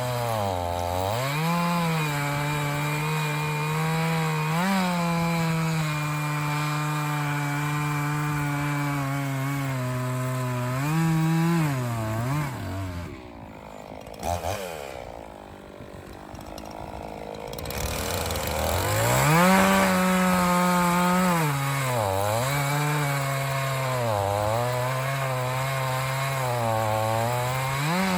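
Echo CS501P two-stroke chainsaw cutting through dry ash, its engine pitch sagging and recovering as the chain bites into the wood. About thirteen seconds in it drops to a quieter idle for several seconds, then revs back up and cuts again.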